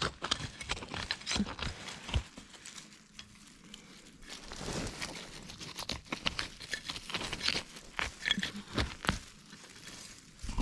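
Hand weeder and fingers digging and prying in dry leaf litter and wood-chip mulch: a run of crackling rustles and scrapes as a small weed's root is worked loose and pulled out.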